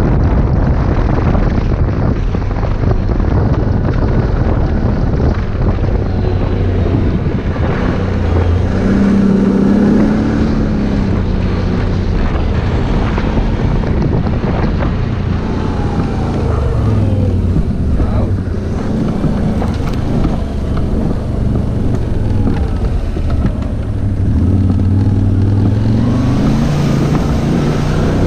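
Quad bike (ATV) engine running while riding, its pitch rising and falling again and again as the throttle opens and closes, with wind noise on the microphone.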